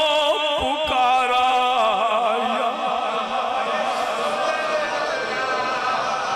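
A man's voice chanting a long, drawn-out devotional line with wavering vibrato, amplified through a microphone with echo. About three seconds in, the voice thins and trails off.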